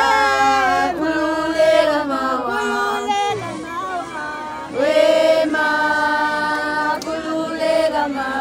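Several voices singing a Zulu song in chorus, with long held notes, softer for a moment midway before swelling again.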